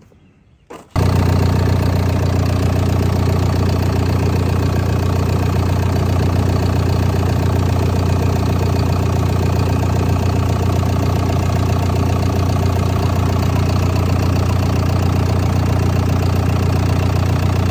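John Deere 650K dozer's Tier 4 diesel engine running steadily, heard close at the open engine bay, cutting in abruptly about a second in. It is running on a freshly replaced crankcase blow-by filter, with the blow-by from the fill tube almost gone.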